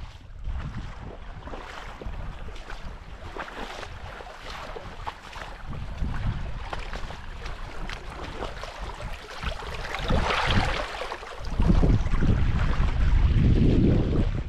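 Wind buffeting the microphone over the rush of running spring-runoff water. The buffeting comes in gusts and is heaviest over the last few seconds.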